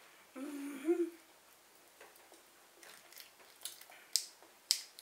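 A woman hums a short, appreciative "mm-mm" while eating. Then come several sharp clicks and crackles as she pulls apart a piece of cooked shellfish shell with her hands.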